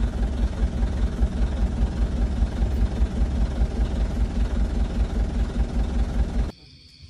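Vehicle driving along a rough, muddy dirt track: a steady engine and road rumble with a fluctuating level, cutting off suddenly about six and a half seconds in.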